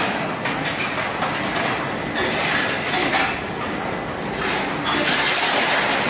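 Commercial flight-type conveyor dishwasher running: a steady machine noise with dishes and trays clinking and clattering on the moving conveyor.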